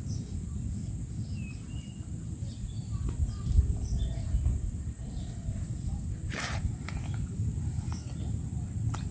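Outdoor ambience: a steady low rumble like wind on the microphone, a constant high hiss, and a few short bird chirps, with one sharp click past the middle.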